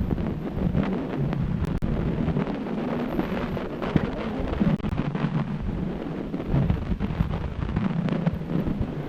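Wind buffeting the microphone: a steady, loud rumble with a few faint clicks.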